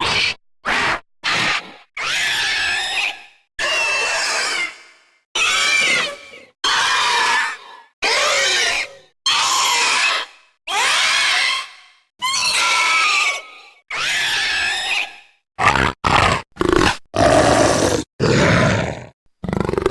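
A string of separate Velociraptor sound effects, designed creature calls each cut off cleanly by silence: a few short clipped calls, then a run of roughly one-second screeching calls full of sweeping, warbling pitch slides. Near the end the calls come quicker and shorter, with a heavier, lower grunting sound.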